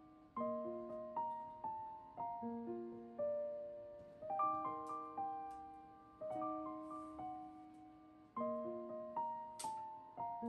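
Background piano music: a slow, gentle melody of single decaying notes over low chords, in short phrases about two seconds long.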